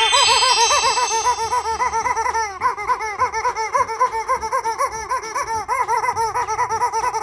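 A baby or small child laughing in a long run of quick, high-pitched giggles that stops near the end.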